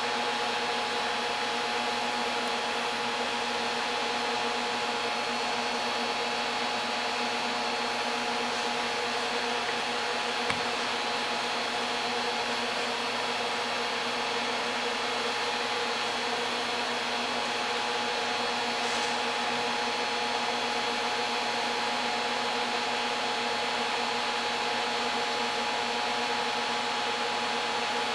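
A 10 kW resonant-lock induction heater running under load, heating a 4 lb iron billet in its water-cooled copper coil: a steady whirring hiss with a few held hum tones. A single light tap about ten seconds in.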